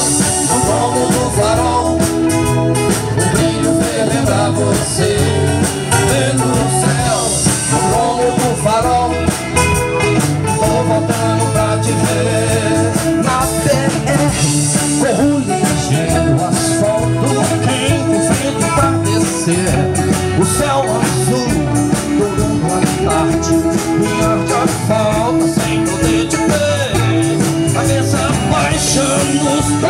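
A live country band playing: banjo, electric and acoustic guitars, upright bass and drum kit, over a steady drumbeat.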